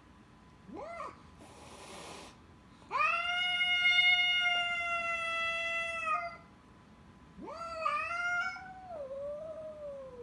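Domestic cat yowling in a fight standoff: a short call and a brief hiss, then two long, drawn-out caterwauls, the second dropping in pitch at its end. This is the threatening warning yowl of a cat squaring off against another.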